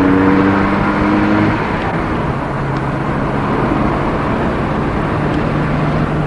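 Road and engine noise heard from inside a moving car. A steady car horn is held at the start and cuts off about one and a half seconds in.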